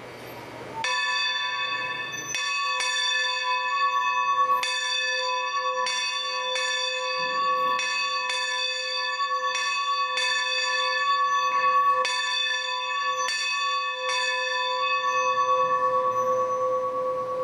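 Steam locomotive's bell ringing, starting about a second in. It is struck over and over, roughly once or twice a second, and each clang rings on into the next.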